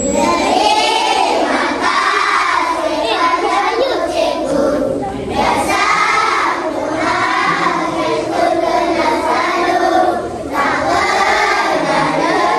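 A chorus of young children singing together in unison, with short breaks between phrases about five and ten seconds in.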